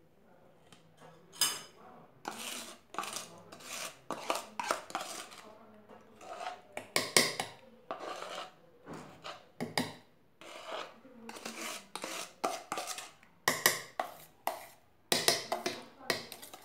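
Metal kitchen utensils clinking and scraping in a long run of irregular knocks and clatters.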